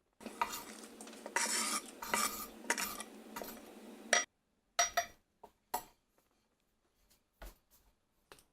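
A metal utensil stirring and scraping in a pot of ramen for about four seconds, then several separate clinks of metal on the cookware, a few with a short ring.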